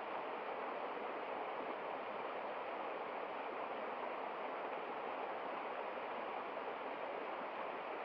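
Small waterfall cascading down a rock face: a steady, even rush of falling water.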